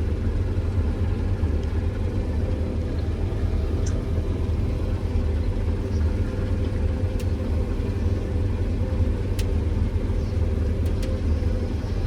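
Combine harvester running steadily while cutting soybeans, a continuous low drone with a few faint ticks.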